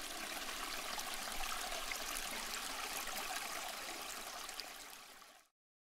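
Shallow creek water flowing and trickling steadily. It fades down near the end and then cuts off.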